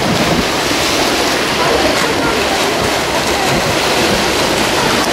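Spectators shouting and cheering over the churning splash of swimmers racing in the pool.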